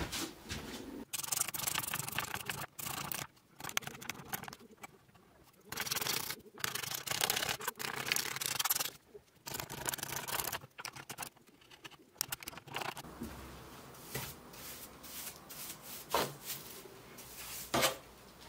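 Repeated rubbing and scraping strokes on the old wooden body of a large hand plane as grime and dust are cleaned off. They come in runs of one to two seconds, then go quieter, with two sharp taps near the end.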